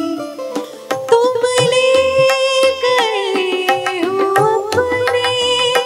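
A woman singing a long held note with no words, which slides down and back up in the middle, over harmonium and hand-drum strokes, in a live performance of a Hindi film song.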